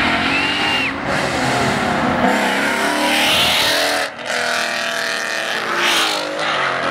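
Cars accelerating hard along the street, their engines revving with the exhaust note rising in pitch. There is a short drop in level about four seconds in, then another car accelerates past close by.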